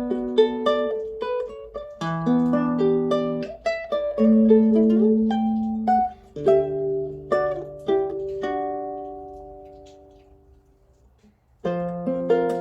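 OLIVE U420G guitalele, a small six-string guitar with nylon strings and a spruce top, being played with picked notes and strummed chords. Near the end a chord is left to ring and fades almost to silence, then the playing starts again.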